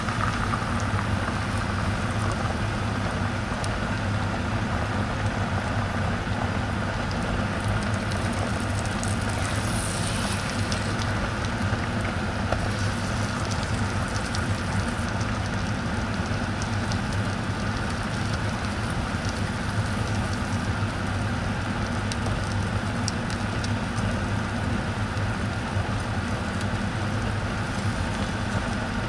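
Beaten egg sizzling steadily in a hot non-stick frying pan, a continuous crackling hiss with a steady low hum beneath it.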